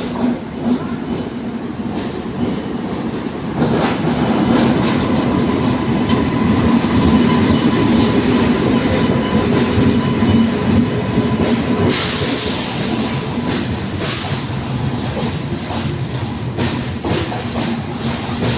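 Passenger train running along the platform as it pulls into the station: a steady rumble and clatter of wheels on rails that grows louder about three and a half seconds in, with a thin steady squeal over it. Two short bursts of hiss come near the end.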